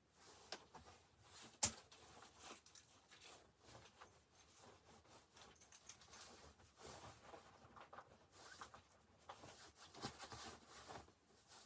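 Faint rustling and crinkling of tent fabric and gear being handled, with scattered small clicks and one sharp click about a second and a half in.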